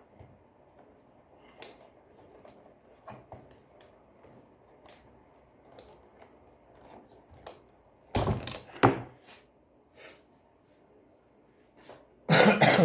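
Handling noises from reassembling a vacuum cleaner: scattered light clicks and taps, then two louder bursts of knocking and scraping, about eight seconds in and again near the end. No motor is running.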